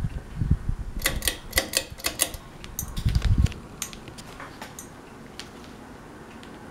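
Ceiling fan clicking rapidly for a second or so, with a couple of dull knocks, then a faint steady hum with occasional ticks.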